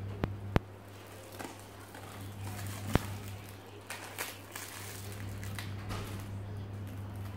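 Plastic stretch wrap on a cardboard box crinkling and crackling as it is slit and pulled with a box cutter, with three sharp clicks, the loudest about 3 seconds in. A steady low electrical hum runs underneath.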